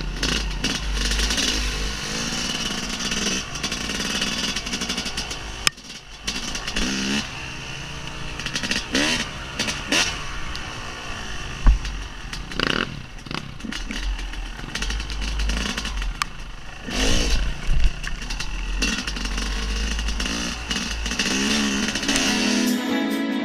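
Yamaha YZ250 two-stroke dirt bike engine revving up and down as it is ridden along a rough trail, with several sharp knocks and clatter from the bike over the ground, the loudest about halfway through. Music begins near the end.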